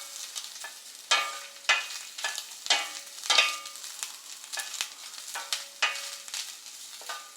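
Grated coconut frying in ghee in a metal pan, a spatula scraping and knocking against the pan in irregular strokes, about one or two a second, as it is stirred, with a faint sizzle underneath. The coconut is being roasted to drive off its moisture.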